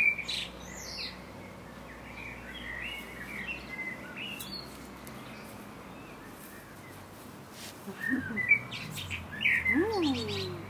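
Songbirds chirping and twittering on and off, with a louder patch of rustling and a brief low rising-and-falling vocal sound near the end.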